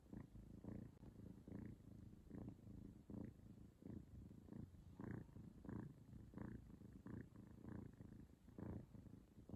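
A grey kitten purring softly and steadily, the purr swelling and fading with each breath about twice a second.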